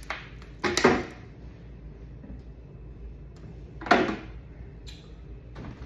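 Two sharp clunks about three seconds apart, with a few lighter knocks, as food containers are set back onto refrigerator shelves.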